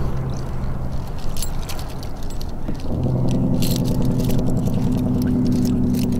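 A motor's steady hum that steps up to a higher, fuller pitch about three seconds in, with light metallic clinks and rattles of a trap and its chain being handled.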